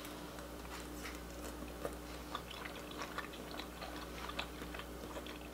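Faint room tone: a steady low hum with many small, scattered clicks and ticks.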